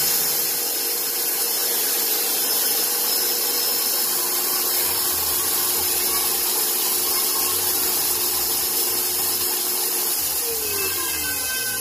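KitchenAid Professional HD stand mixer running at speed with its wire whip beating mashed sweet potato, a steady motor whine. Near the end its pitch slides down and it fades as the mixer is switched off and winds down.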